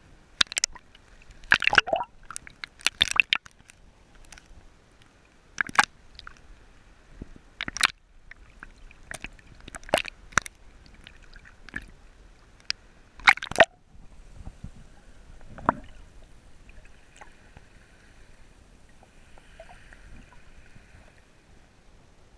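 Small sea waves sloshing and slapping against a camera held at the waterline, with sharp, irregular splashes. The splashes stop about two-thirds of the way through, leaving only faint water sounds.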